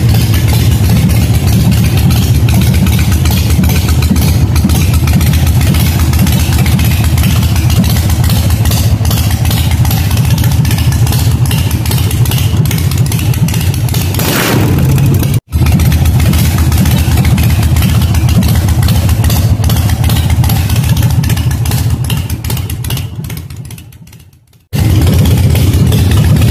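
Harley-Davidson chopper's V-twin engine running at a steady idle through loud exhaust pipes, a dense pulsing rumble. The sound cuts out for an instant about halfway, then fades away near the end before coming back abruptly.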